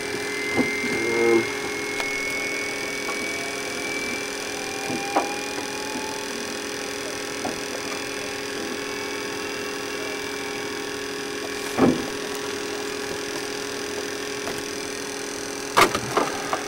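Steady electrical hum of a Saab 340 cockpit with aircraft power on, with several constant tones and a high whine that rises slowly in pitch during the first few seconds. There are a few short knocks, the loudest near the middle and near the end.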